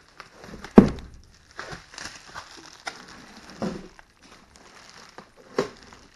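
Bubble wrap and packaging crinkling and rustling as a boxed car amplifier is unwrapped by hand, with three sharp knocks, the first the loudest.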